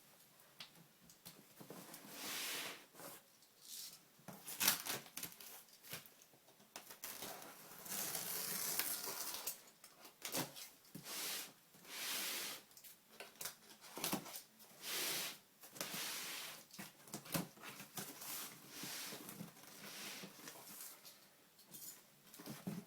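A cardboard box and its packaging being opened and unpacked by hand: irregular bursts of rustling and scraping, about one a second, with sharp clicks and light knocks in between.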